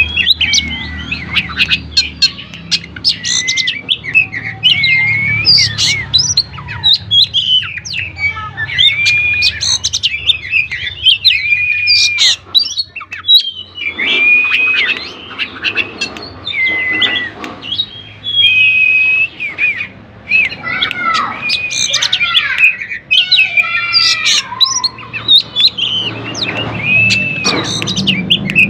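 Oriental magpie-robin singing continuously in full, vigorous song, a varied run of clear whistles, rising and falling slurred notes and harsher chattering phrases.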